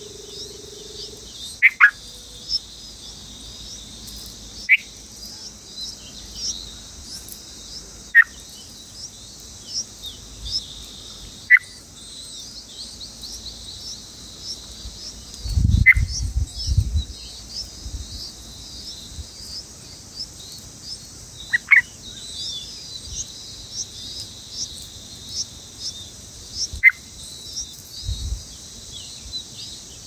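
Birds calling over a steady high-pitched insect drone: a short, sharp falling call repeats about every three to five seconds, with soft chirps throughout. A low rumble lasts about a second and a half about halfway through.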